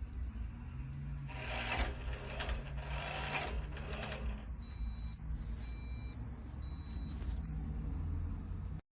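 Smart deadbolt lock mechanism whirring in three short runs, then a string of high electronic beeps alternating between two close pitches. The sound cuts off abruptly near the end.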